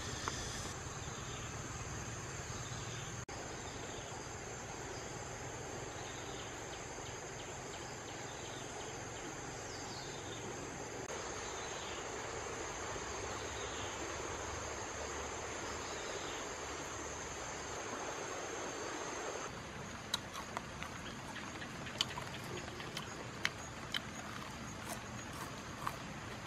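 Steady high-pitched drone of a wild insect chorus over an even background hiss; the drone stops about twenty seconds in, and scattered sharp clicks and ticks follow.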